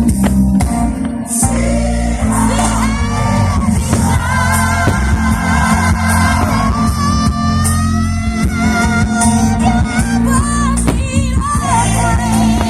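Music with a singing voice over a strong, steady bass.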